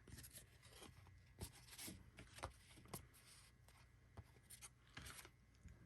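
Faint soft scrapes and light taps of baseball trading cards being slid off a stack and flipped through by hand, a dozen or so small strokes spread irregularly.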